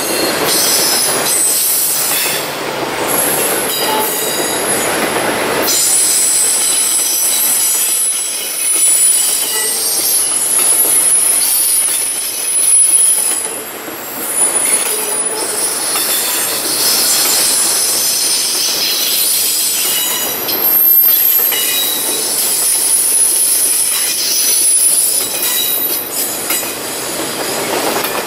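BNSF intermodal freight train rolling past, a long string of highway trailers on flatcars. Its wheels squeal in high, drawn-out tones over the steady rumble and clatter of the cars.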